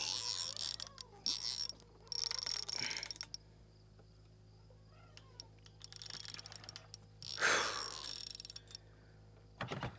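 Fishing reel under load from a hooked muskie: irregular bursts of drag and reel-mechanism noise with quiet gaps between them, the loudest burst about seven seconds in.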